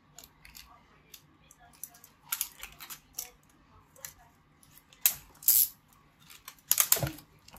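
A laptop power adapter and its cable handled by hand during unboxing: irregular clicks, knocks and rustling. The louder rustles come about two and a half, five and seven seconds in.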